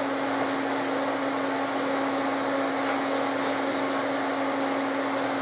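Steady hum of a running electric fan: an even rush with one constant low tone underneath.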